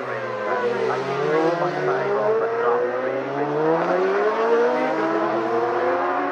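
Racing motorcycle engines at high revs as several bikes go past, overlapping, with their engine pitch rising and falling.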